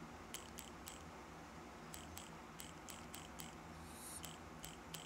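Typing on a phone's on-screen keyboard: about a dozen faint, short clicks of key taps, irregularly spaced and often in quick pairs.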